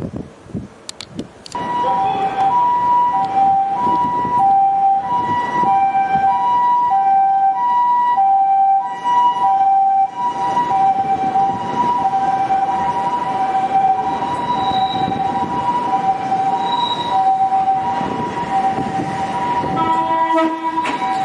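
A Japanese ambulance's two-tone siren sounds its alternating high-low "pee-po", starting about a second and a half in and repeating steadily. Underneath it, an Odakyu 8000 series electric train rumbles as it pulls into the platform.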